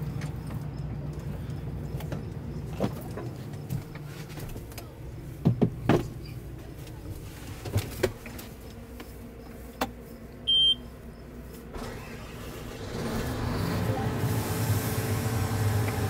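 Combine harvester engine running steadily, heard from inside the cab, with scattered clicks and knocks of the cab controls. A short high electronic beep sounds about ten seconds in, and from about thirteen seconds in the machine noise swells and grows louder.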